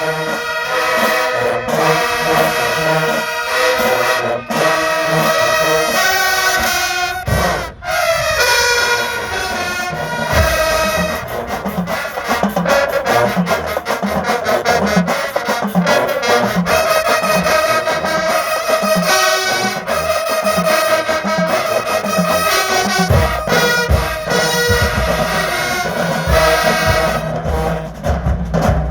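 HBCU marching band's brass section playing loud, with a falling slide about eight seconds in, then a steady drum beat under the horns.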